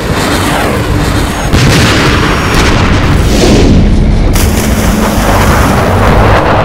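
Heavy weapons fire: loud, continuous booming blasts with deep rumble.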